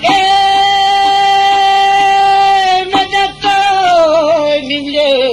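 A singer in an Albanian folk song holding one long high note for about three seconds, then sliding down slowly in a wavering, ornamented line.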